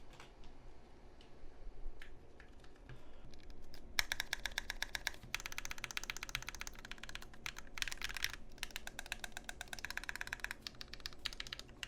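Typing sound test on a TMOv2 mechanical keyboard with Husky linear switches in a top-mount brass plate with no foam. A few scattered keystrokes come first, then fast continuous typing from about four seconds in, in runs with short pauses. The builder hears some resonance in it, which he puts down to the unfoamed brass plate or perhaps a stabilizer.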